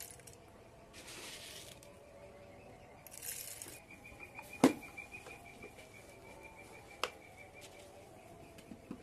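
Nuts dropped by hand into a glass jar, rattling against the glass in two short pours, then a sharp knock and later a lighter click as the jar and its lid are handled. A faint, steady, high whistling trill runs behind the second half.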